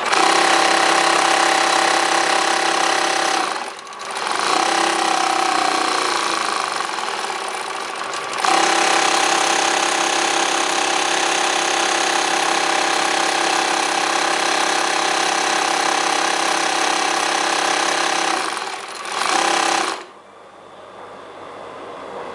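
Typical TW3-series industrial sewing machine running at high speed as it stitches, with a rapid, steady mechanical whir and clatter. It eases off briefly about four seconds in, picks up again, dips near the end and then stops.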